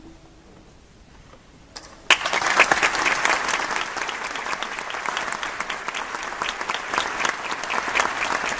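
A short hush, then audience applause breaks out suddenly about two seconds in and goes on steadily.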